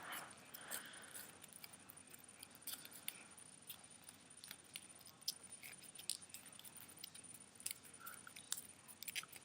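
Faint, scattered crinkles and small clicks of a sheet of paper being twisted and folded by hand.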